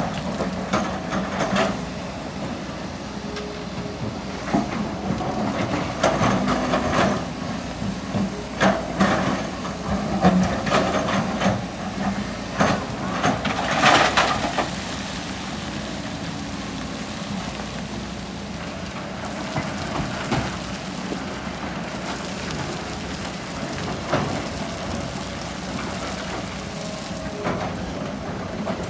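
Hitachi hydraulic excavator's diesel engine running steadily while it digs, with rock and sand clattering and crunching in irregular bursts through the middle, the loudest about halfway through.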